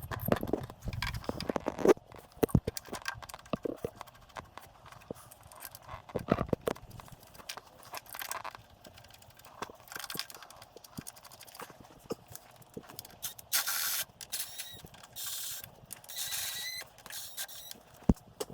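Hand-tool work on metal: short runs of ratchet clicking among scattered clinks and knocks.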